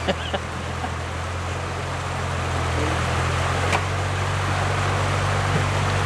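Creek water rushing, with a vehicle engine idling steadily underneath as a low hum, and a few sharp knocks near the start.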